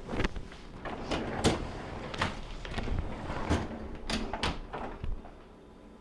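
Freezer drawer of a bottom-mount refrigerator being pushed in and pulled out on its track, with a string of knocks and clunks as the drawer door meets the cabinet and its seal.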